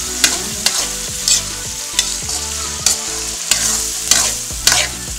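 A metal spatula scraping and knocking against a wok as minced pork with garlic, onion and tomato is stir-fried, over a steady sizzle of hot oil. About eight scrapes come at irregular intervals, roughly every half second.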